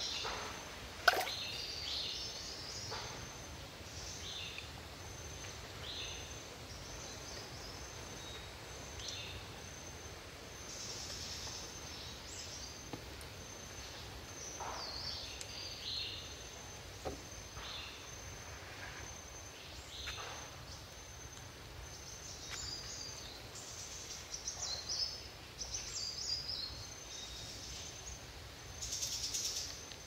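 Forest birds giving short chirps and falling whistles every second or two over a faint steady background hiss and a thin high whine. A sharp click about a second in, and a brief rustle near the end.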